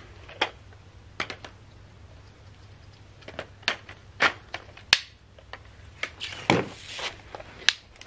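Irregular sharp clicks and knocks of hard plastic as the parts of an Anko cordless stick vacuum, its wand and body, are handled and fitted together; the motor is not running.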